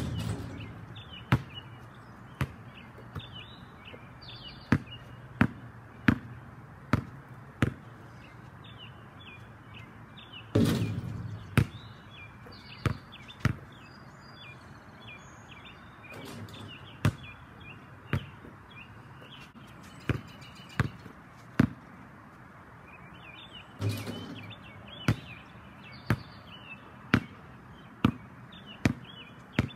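A basketball bouncing on a concrete driveway: single sharp bounces, spaced a second or more apart. Three times (at the start, about eleven seconds in and near the end) a longer, louder hit rings on, the ball striking the backboard and rim.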